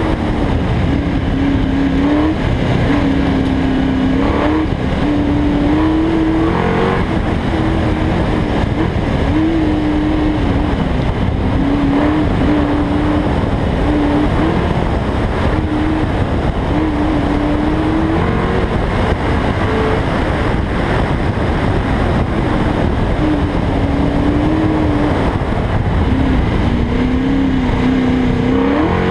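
Ford Mustang engine under load through an autocross run, its pitch rising and falling with the throttle, over a constant loud rush of wind on the hood-mounted microphone.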